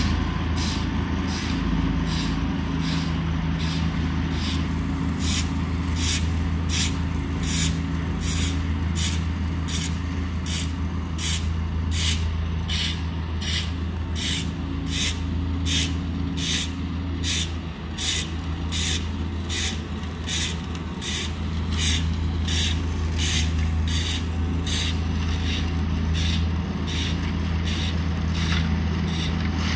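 Amazone Profihopper ride-on mower-collector's diesel engine running steadily as the machine picks up leaves. A rhythmic high hiss pulses along with it about one and a half times a second.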